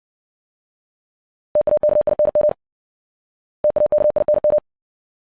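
Morse code sent at 60 words per minute: a single steady beep tone keyed rapidly on and off in dits and dahs, in two bursts of about a second each, the first about one and a half seconds in and the second just before four seconds.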